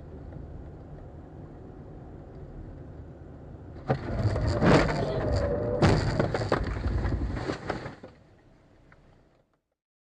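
Car road noise, then a sudden collision about four seconds in, with further hard knocks and clattering over the next few seconds before it dies away.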